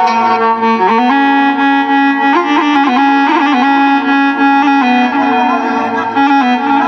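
Electronic keyboard playing an ornamented solo melody in a reedy wind-instrument voice, with held notes broken by quick turns and trills: the instrumental interlude of an Iraqi mawwal.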